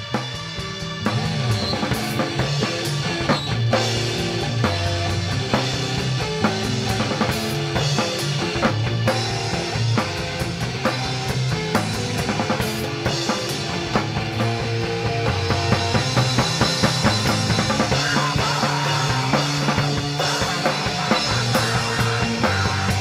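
Metal band playing live: drum kit hammering with heavy distorted guitar and bass. The band drops out briefly at the start and comes back in full about a second in.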